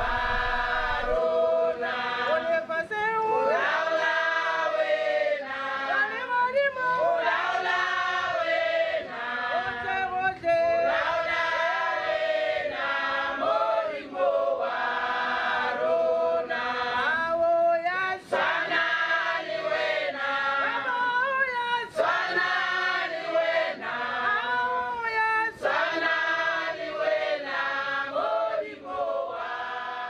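Background music of a choir singing.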